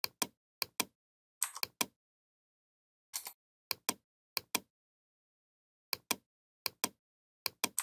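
Computer mouse button clicking about eight times, each click a quick double tick of press and release, with dead silence between. One short scuffing noise comes about three seconds in.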